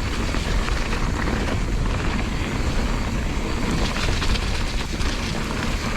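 Mountain bike descending a rough, muddy trail: a steady rumble of tyres and frame with rattling and knocking from the bumps, and wind buffeting the camera microphone.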